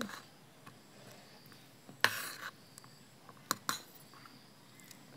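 Quiet table sounds of eating with a spoon: a few light clicks of the spoon against a dish, and a short scraping or rustling noise about two seconds in.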